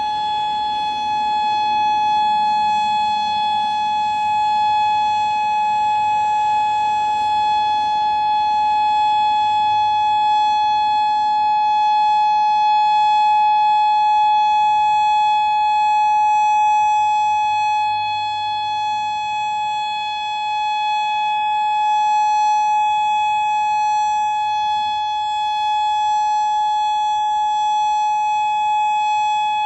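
Federal Signal Modulator 4016 outdoor warning siren sounding a steady, single-pitched alert tone during a test, swelling and fading slightly in loudness without changing pitch.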